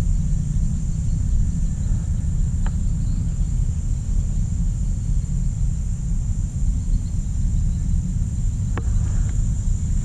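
Wind rumbling unevenly on the microphone, under a steady high-pitched insect drone. Two short clicks sound, one about 3 seconds in and one near the end.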